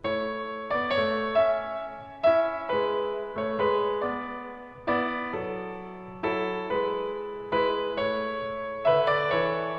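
Background music: a solo piano playing a slow, gentle melody, notes struck and left to ring out.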